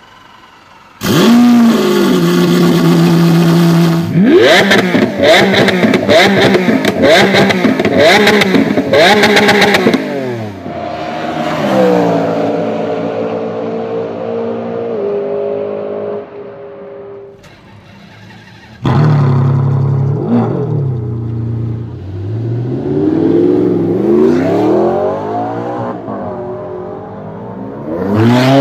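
Supercar engines at full throttle, the pitch climbing and then dropping back with each gear change, followed by a run of falling pitch as they slow down. The sound starts abruptly about a second in, dips, and starts abruptly again about two-thirds of the way through, so these are separate clips cut together.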